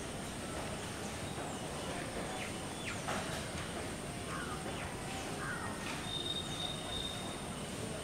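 Steady outdoor background noise with scattered faint, short bird calls and chirps, and a thin high whistle held for about a second, about six seconds in.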